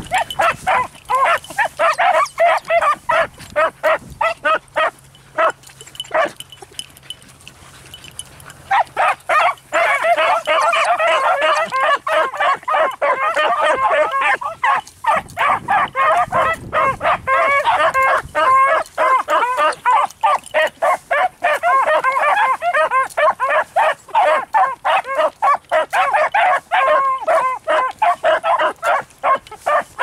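A pack of beagles baying as they run a scent track. For the first nine seconds a few separate bays come at a time; then the whole pack opens up together, their voices overlapping almost without a break.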